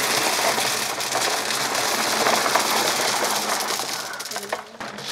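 3/4-inch crushed stone poured from a plastic bucket into a blue plastic drum: a continuous rattling clatter of stones. It starts suddenly and thins out after about four and a half seconds.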